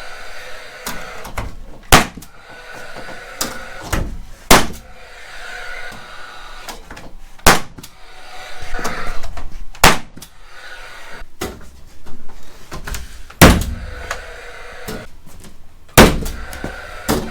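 Cedar ceiling boards being nailed up: about six loud, sharp single knocks, one every two to three seconds, with lighter clicks and knocks of handling between.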